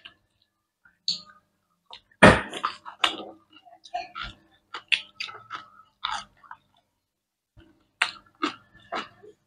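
Close-up chewing and mouth smacking of people eating grilled octopus, a run of short wet clicks and crackles with a louder smack about two seconds in.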